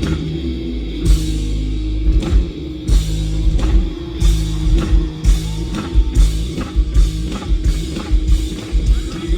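Live rock band playing an instrumental passage at full volume, with the drum kit striking steadily over a sustained bass and guitars.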